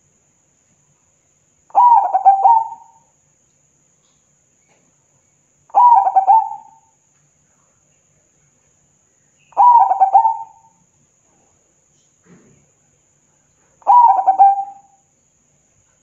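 Zebra dove (perkutut) cooing: four calls about four seconds apart, each a quick run of notes lasting about a second.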